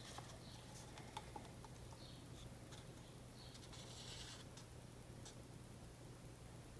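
Near silence with faint, scattered ticks and light taps of plastic cups of acrylic paint being handled.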